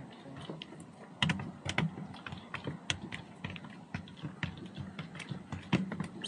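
A string of irregular light clicks and taps, a few each second, from fishing tackle being handled in a small boat.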